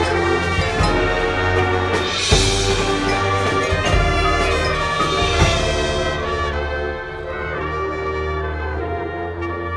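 Marching band playing: brass section holding loud chords over drums, with a cymbal crash about two seconds in.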